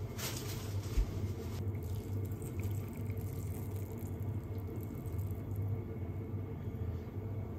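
Garlic butter soy sauce poured from a pan over a steak rice bowl, trickling and dripping, over a steady low hum. A dull thump about a second in.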